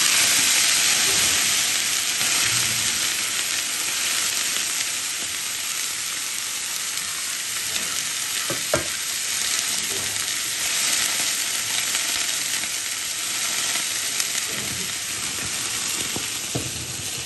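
Garlic paste with cumin and coriander sizzling hard in hot oil as a little water goes into the pan. The sizzle starts abruptly, is loudest at first and then eases a little, while a spoon stirs and knocks against the pan a few times.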